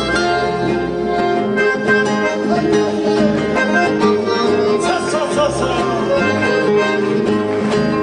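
A piano accordion and acoustic guitars playing together live, the accordion holding sustained notes over plucked guitar.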